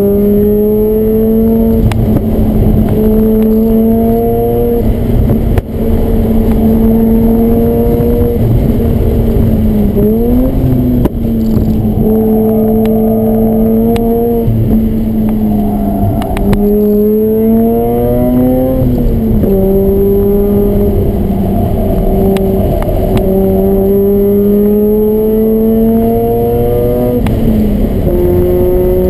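Mazda RX-8's twin-rotor rotary engine, through an aftermarket HKS exhaust, driven hard on track and heard from inside the cabin. The engine note climbs steadily in pitch, drops back at each shift or lift for a corner, then climbs again, several times over, with a couple of quick rises and falls of the revs around the middle.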